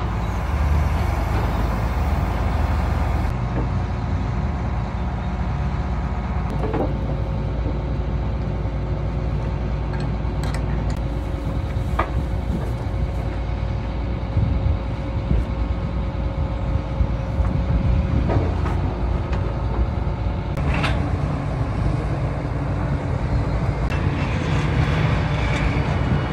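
Excavator's diesel engine idling steadily while its hydraulic breaker is being changed, with a few sharp metal knocks from work on the attachment's mounting pins.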